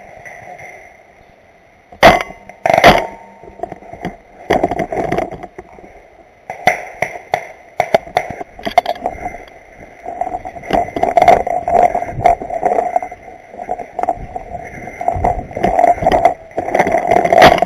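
Paintball markers firing during a game: two loud sharp pops about two and three seconds in, then scattered pops and clicks that come thicker toward the end.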